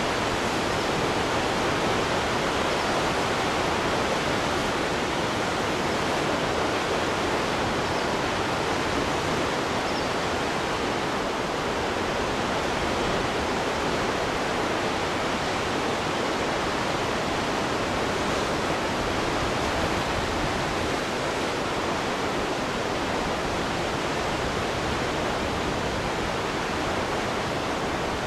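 Steady rushing water, an even unbroken noise that neither swells nor pauses.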